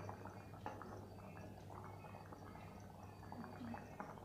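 Egg curry gravy bubbling faintly in a pan while a ladle scoops and spoons it over the eggs, with small wet drips and clicks.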